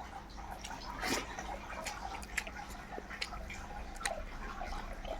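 Close-miked eating sounds: wet chewing with an irregular string of sharp little mouth clicks and smacks.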